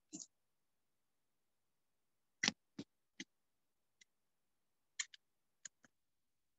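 Handling noise from a phone being set up: a series of about nine sharp clicks and knocks at irregular intervals, the loudest about two and a half seconds in, with dead silence between them.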